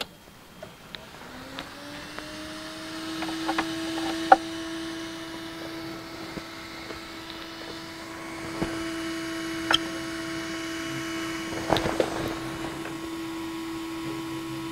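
FDM 3D printer starting up: a hum begins about a second in, rises in pitch for about a second, then holds steady. Several clicks and knocks come from handling the machine.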